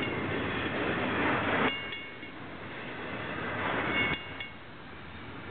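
Double-stack container cars of a freight train rolling past at close range: a steady rush of wheel and rail noise that swells and falls off about every two seconds as each car goes by, with a brief high metallic ring at each drop.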